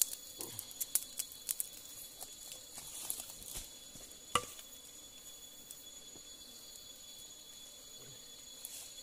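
Scattered sharp clicks and crackles for the first few seconds, the loudest about four seconds in, over a steady high-pitched drone of insects.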